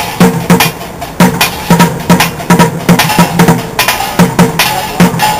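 Street drummer playing a set of plastic buckets with sticks: a fast, steady rhythm of sharp hits, with a hollow low tone under sharper clicking strikes.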